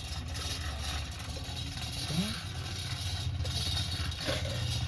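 An engine running steadily with a fast, low pulsing, getting a little louder toward the end.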